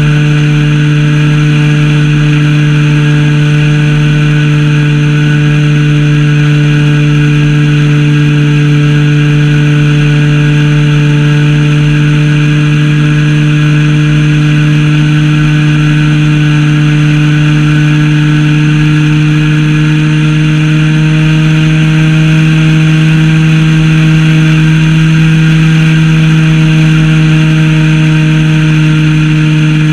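Zenoah ZP 20 two-stroke gas engine of a Super Senior 80 RC plane running steadily at flying speed, loud and close to the on-board microphone. Its pitch rises slightly about two-thirds of the way through.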